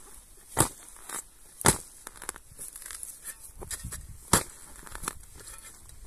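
A steel spade driven into turf to dig out an elecampane root, crunching and tearing through soil and grass roots in sharp strokes, three loud ones with smaller crackles between.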